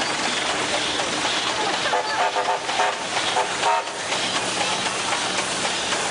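Steam engine running with a steady hiss of steam. Short broken pitched sounds come in between about two and four seconds in.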